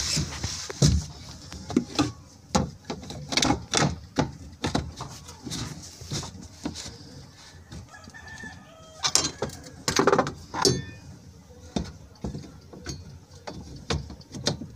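A rooster crowing, its call breaking into short pitched notes about eight to eleven seconds in. Scattered sharp clicks and knocks sound throughout.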